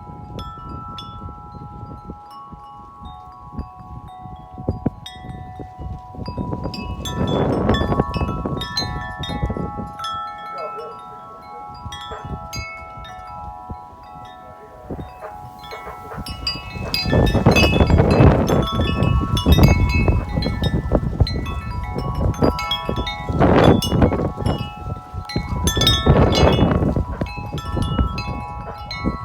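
Corinthian Bells 36-inch wind chime ringing in strong wind, its tubes struck over and over so that several tones sound together. Gusts of wind buffet the microphone, loudest in the second half.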